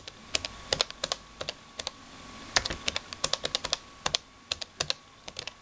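Typing on the built-in keyboard of a Toshiba T1850 laptop: irregular runs of key clicks, densest in the middle, as a web address is entered.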